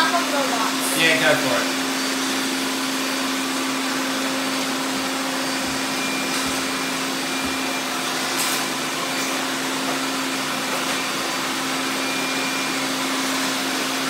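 Several robot vacuums running at once on a tile floor: a steady whir with a constant low hum.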